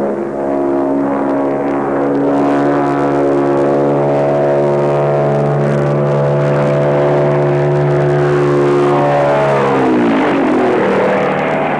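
Convair XFY-1's Allison turboprop and contra-rotating propellers in flight, a steady drone that drops sharply in pitch near the end as the aircraft flies past close by.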